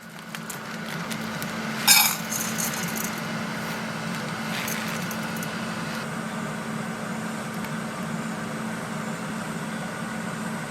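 A steady machine hum under the sounds of dishes: one sharp metal-and-glass clink about two seconds in, then a few lighter clinks.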